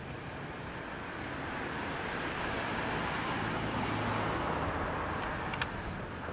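Kawasaki ZXR250R's inline-four engine idling steadily through a Daishin Racing aftermarket muffler. A broad rushing noise swells and fades around the middle.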